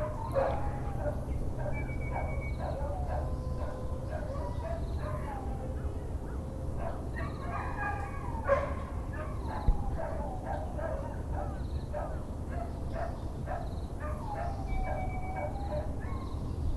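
Dogs barking and yelping in the neighbourhood, many short calls overlapping, over a steady low background hum, with birds calling and a couple of sharp knocks midway.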